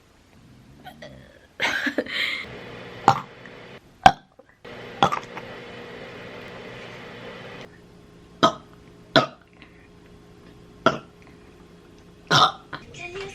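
A woman burping over and over, about eight short burps at uneven gaps of roughly a second. The one about two seconds in lasts longer than the rest.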